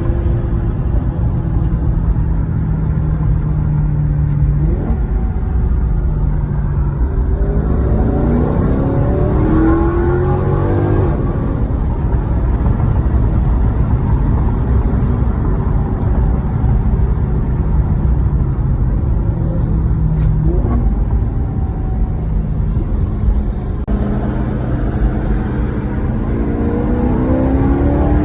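Maserati GranTurismo V8 on its stock exhaust in Sport mode, running steadily, then pulling twice: the engine note climbs over a few seconds about eight seconds in, drops suddenly as it shifts, and climbs again near the end.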